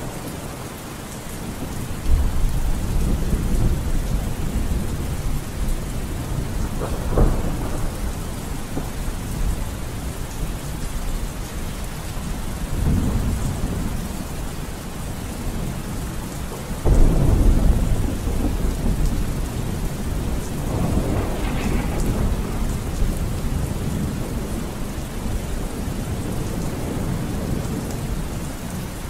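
Steady rain with low rolls of thunder every few seconds, the loudest a little past the middle.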